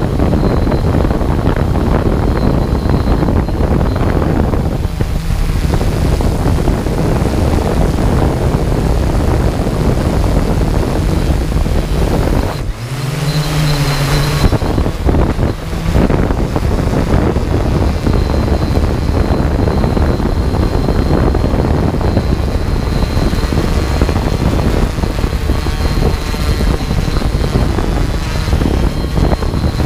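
A drone's motors and propellers running steadily, heard from its onboard camera, with wind rushing over the microphone. The sound changes briefly about halfway through, then carries on as before.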